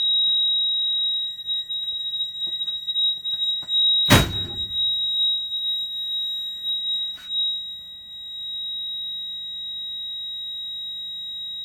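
A steady high-pitched electronic alarm tone sounds throughout. About four seconds in, the automatic transfer switch gives one loud clunk as it switches the building onto generator power, and a smaller knock follows about three seconds later.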